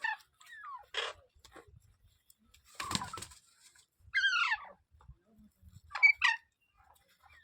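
Pet parrot giving a series of separate squawks and calls: a harsh squawk about three seconds in, a falling call about four seconds in, and two quick calls near the end.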